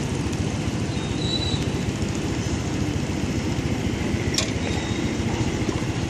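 An engine running steadily with a low, even rumble and no change in speed. A single sharp click about four and a half seconds in.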